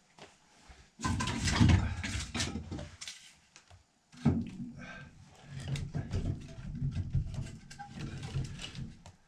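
A freshly lit fire in a wood stove being tended: kindling handled and set in the open firebox, with scattered clicks and knocks. A low rumbling sound comes in two stretches, about a second in and again from about four seconds in.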